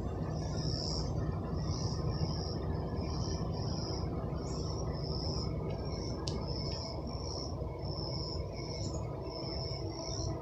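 Insects calling: short high-pitched chirps repeating about once or twice a second, over a steady low rumble.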